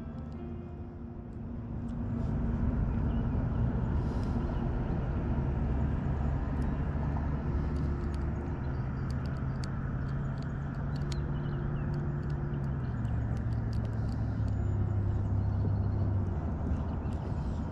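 A steady low motor hum with a clear pitch. It grows louder about two seconds in and drops slightly in pitch about two-thirds of the way through.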